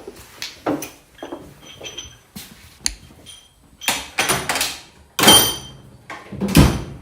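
Metal hand tools, sockets and bolts clinking and clattering in a series of sharp knocks, some with a short metallic ring. Two louder clanks come about five seconds in and near the end.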